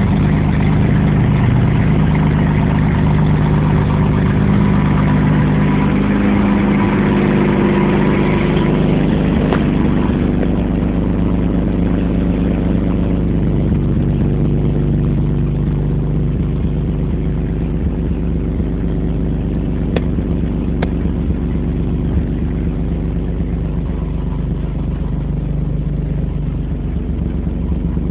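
Chevrolet Suprema 3.0's inline-six engine idling. Its note shifts between about six and ten seconds in, then settles to a steady idle.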